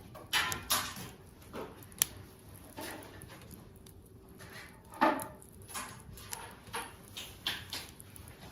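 Wood fire burning scrap building lumber, crackling with irregular sharp pops and snaps; a sharp crack about two seconds in and the loudest pop about five seconds in.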